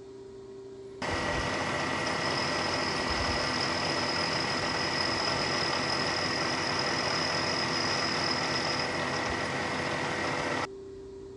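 Milling machine's end mill cutting aluminium: a loud, steady cutting noise with a high steady whine. It starts suddenly about a second in and stops abruptly near the end.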